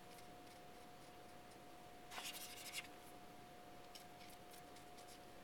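Faint scratching of a blender pen's felt tip rubbed over the inked rubber letters of a stamp, lifting the ink off, with a brief louder scratchy patch about two seconds in.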